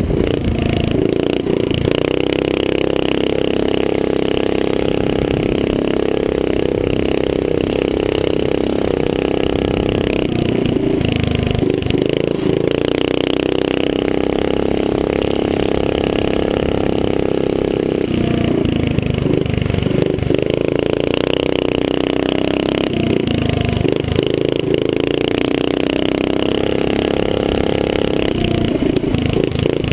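Small mini-bike engine running hard at high revs, heard from the rider's helmet camera with wind hiss over it. The revs hold steady for several seconds at a time, then drop and climb again a handful of times as the rider backs off and gets back on the throttle.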